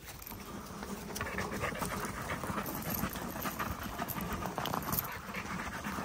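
A pit bull panting steadily after exercise.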